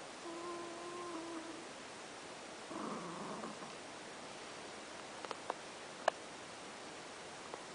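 Domestic cat snoring in its sleep: a held, pitched whistling note on one breath, then a short rasping breath about three seconds in. A few faint sharp ticks follow later.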